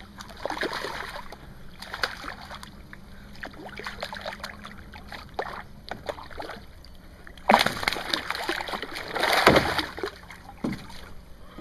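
Hooked largemouth bass thrashing and splashing at the water's surface beside a small boat while being reeled in through reeds, with two loud splashes about seven and a half and nine seconds in.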